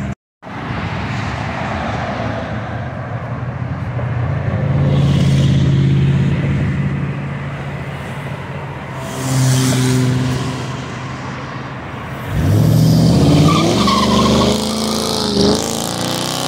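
Car engines running as cars drive past. About twelve seconds in, one accelerates hard: its engine pitch climbs steeply, then rises and falls several times through gear changes, and this is the loudest part.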